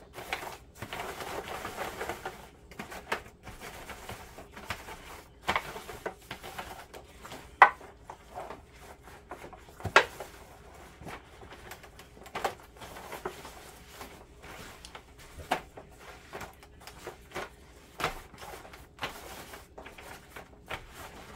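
Wet, dye-soaked fabric being rubbed and squished around in a disposable aluminium foil pan, the thin foil crinkling and popping irregularly under the hands, with a few sharp clicks, the loudest about eight and ten seconds in.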